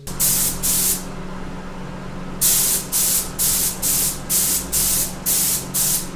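Gravity-feed paint spray gun on compressed air hissing in short bursts as the trigger is pulled for each pass: two near the start, then a run of about eight, roughly two a second, laying on a first coat of paint. A steady low hum of the booth's extraction fan runs underneath.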